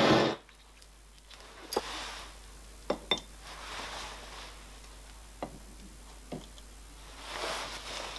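A gas torch's flame running and then shutting off just after the start. Then a handful of light metallic clinks and taps, two in quick succession about three seconds in, as a steel bar and a small block are set down on the freshly soldered brass and steel plates to press them flat.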